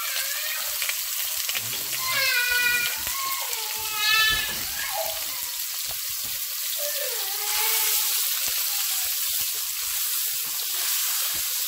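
Mexican chorizo sizzling steadily in hot oil in an aluminium caldero, with a high voice heard briefly twice, about two and four seconds in.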